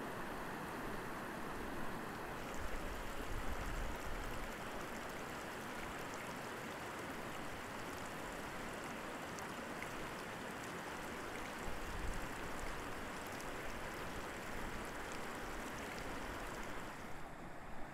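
Mountain stream rushing over stones: a steady wash of flowing water.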